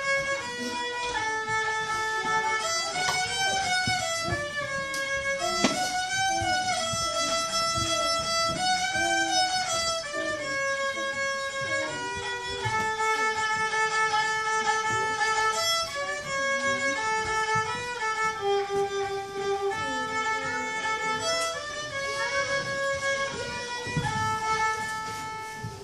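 A young girl playing a fiddle solo: a bowed melody of held notes joined by short slides.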